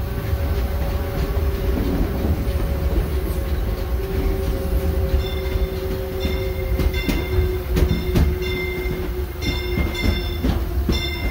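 Passenger car of a narrow-gauge steam train rolling on the track, heard from on board: a heavy low rumble with clicks over the rail joints. About halfway through, a high metallic squealing starts and comes and goes.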